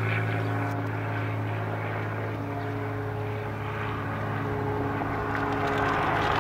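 A steady engine drone with a low hum, growing a little louder near the end.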